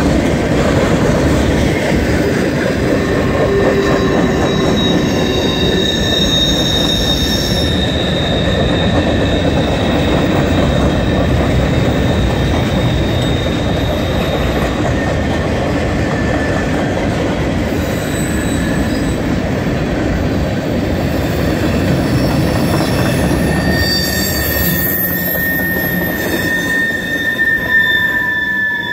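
Freight cars rolling past close by: a steady rumble of steel wheels on the rails, with high-pitched wheel squeal that comes and goes, strongest in the middle and again near the end.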